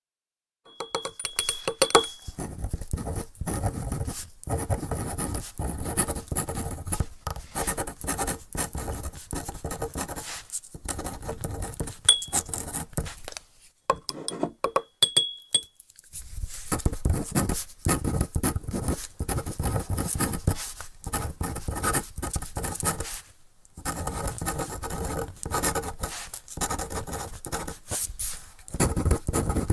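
Dry feather quill scratching across parchment in quick, dense strokes as it scribbles and writes numbers, with short pauses between runs and a couple of brief high squeaks.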